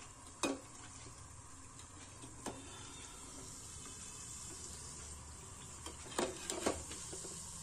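Avalakki sandige (sun-dried flattened-rice crisps) frying in hot oil with a faint, steady sizzle. A metal slotted spoon clinks sharply against the pan about half a second in, again near two and a half seconds, and twice close together near the end.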